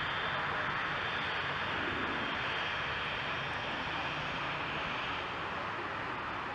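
Jet aircraft engines in flight, a steady rushing noise with a faint high whine, easing slightly toward the end.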